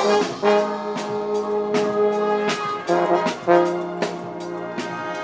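Brass band playing: brass instruments hold long chords that change about two and a half seconds in and again about a second later, over percussion hits about twice a second.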